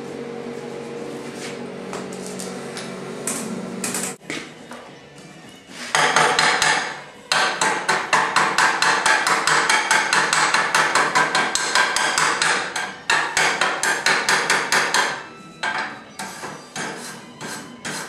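A hammer striking steel in quick runs of blows, about four a second, with short breaks between runs. A steady hum comes before the blows in the first few seconds.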